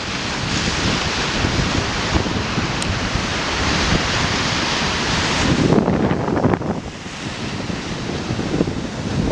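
Storm surf breaking and washing in, a loud hiss for about the first five seconds, then gusty wind buffeting the microphone.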